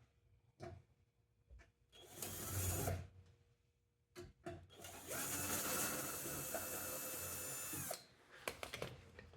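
Handheld electric drill or driver running in two bursts. The first is short, about two seconds in. The second is a steady whine of about three seconds that stops sharply near the end, with small clicks of handling around them.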